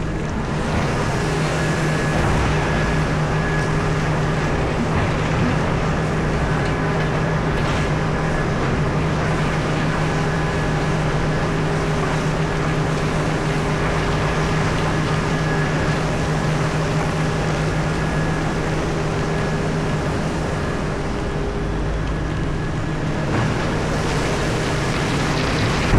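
Heavy mining machinery running: a steady, loud low engine drone with a faint high whine above it, easing slightly about twenty seconds in.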